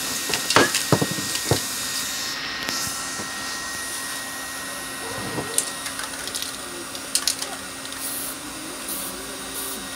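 Aerosol spray-paint cans knocking and clinking as they are handled on the table, followed near the end by short hisses of a can spraying paint, about one burst a second.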